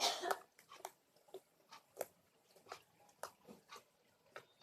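Thick, holdable slime being squeezed and stretched by hand, giving irregular wet clicks and pops, the loudest cluster right at the start.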